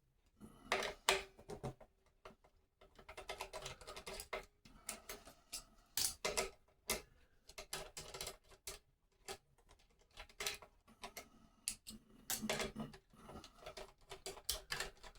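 Small metal parts and a hand tool clicking, tapping and clinking at an irregular pace while a Floyd Rose-style locking nut assembly is taken apart.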